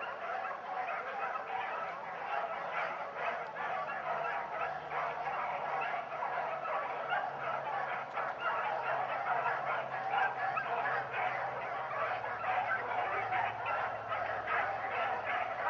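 A pack of hunting dogs baying together in a steady, overlapping chorus, the sound of hounds running a rabbit's trail through the brush.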